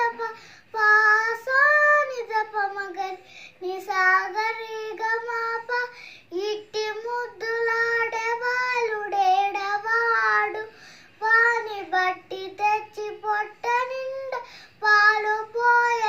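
A young girl singing a devotional song solo and unaccompanied, in short phrases with held notes and brief breaths between them.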